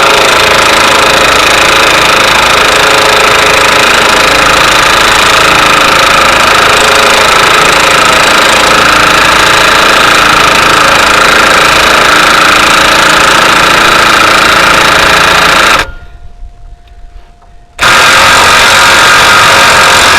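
Impact wrench (stud gun) with a 36 mm socket running on the rear hub nut, winding it on to seat the hub bearing all the way home. It runs steadily for about sixteen seconds, stops for about two, then runs again briefly near the end.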